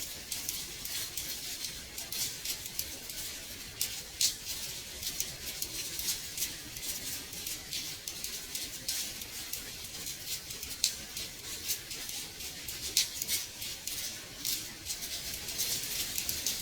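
Rain falling steadily, with many light, irregular taps of drops hitting a window pane over a soft, even hiss.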